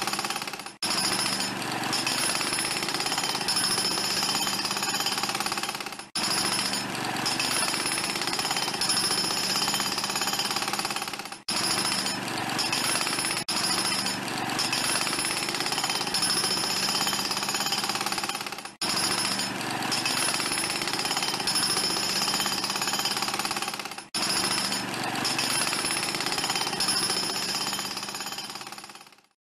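Sped-up chef's knife chopping on a wooden cutting board: a rapid, continuous clatter of blade strikes that breaks off briefly every five seconds or so.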